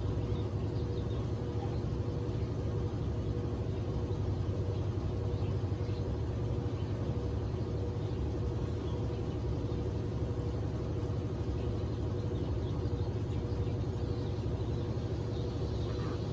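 A steady low mechanical hum from a motor or engine running, with one held tone over a low rumble and no change in speed.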